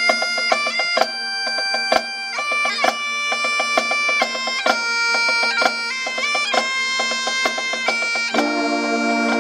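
Great Highland bagpipe playing a tune over its steady drone, with a sharp tap on the beat about twice a second. Near the end, a brass band comes in alongside the pipes.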